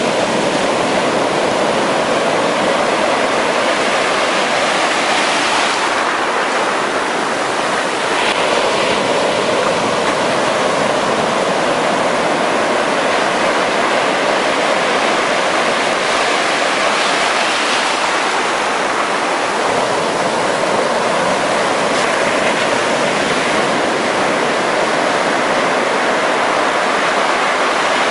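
Ocean surf breaking and washing up the beach in a loud, steady rush of foaming water.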